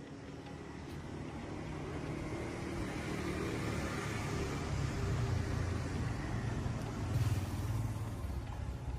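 A machine running with a low rumble that grows louder over the first few seconds, then holds steady.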